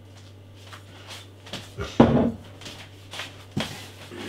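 Glass beer bottles being handled and set down on a table during an unboxing: a few short knocks and clunks, the loudest about two seconds in.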